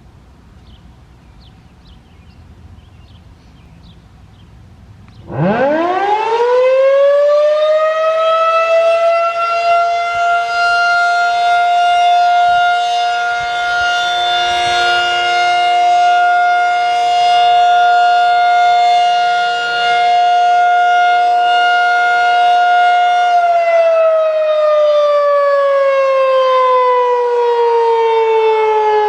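Federal Signal 2001-SRN outdoor warning siren sounding a short alert test. About five seconds in it winds up fast from a low pitch to a steady, loud high wail. It holds that one tone for about eighteen seconds, then begins winding down, its pitch falling steadily.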